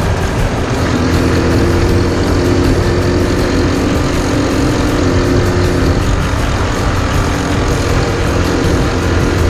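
Honda Super Cub's bored-up 75cc single-cylinder four-stroke engine running steadily while riding, with rushing wind and road noise.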